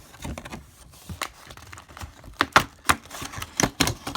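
Irregular sharp clicks and taps, a dozen or so, the loudest about two and a half seconds in: a cardboard hobby box and foil card packs being handled and set down on a table.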